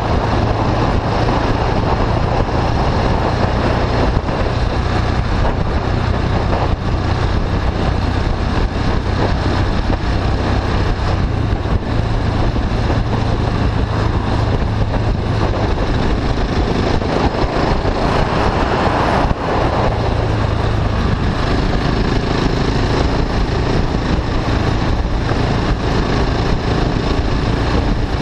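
KTM 690 Duke's single-cylinder engine running steadily through an Akrapovic slip-on exhaust with the catalytic converter bypassed, as the bike cruises on the road, with wind noise over the camera.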